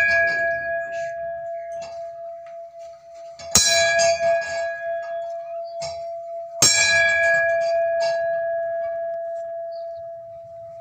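Temple bell struck twice, about three seconds apart, each strike ringing on with a clear steady tone that slowly fades; ringing from one more strike just before is already fading at the start.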